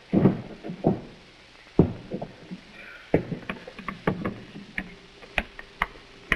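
An irregular series of sharp clicks and knocks from switches and levers being worked by hand on a spaceship prop's control console, with duller thumps in the first second.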